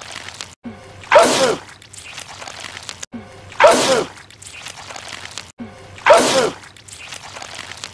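A man's loud sneeze, the same clip looped so that it repeats three times about two and a half seconds apart. Each sneeze is a sudden burst with a falling voiced 'choo'.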